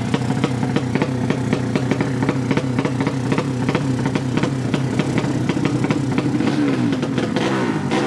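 200cc drag-racing motorcycle engine idling unevenly with sharp exhaust crackle, the revs lifting briefly near the end.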